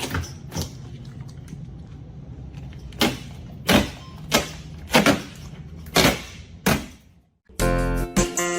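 A series of sharp knocks or bangs at uneven intervals over a low steady hum. Near the end it breaks off briefly and music begins.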